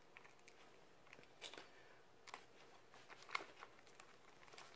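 A clear plastic blister tray being handled, giving a few faint, scattered crinkles and ticks against near silence.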